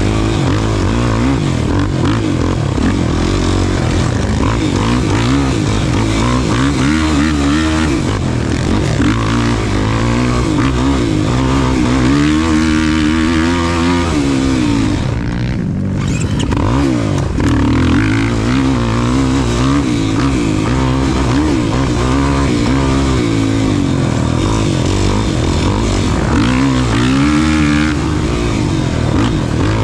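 Off-road racing engine revving up and down again and again as the throttle is worked through the course, with a brief dip about fifteen seconds in.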